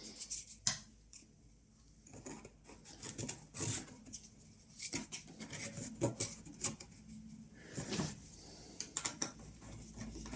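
Irregular clicks, taps and light scrapes of plastic and small metal parts being handled as the air intake filter is fitted and fastened to the side of a plastic heater case.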